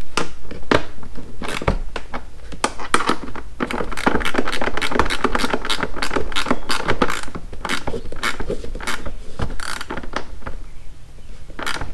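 Hand ratchet with a 7/16 socket clicking in quick, uneven runs as fasteners in the Tour-Pak are tightened.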